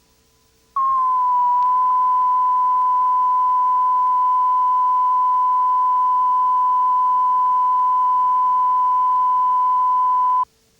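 A single steady test tone of about 1 kHz played off the tape, starting abruptly about a second in, its pitch settling down slightly at first, then holding level for nearly ten seconds before cutting off suddenly.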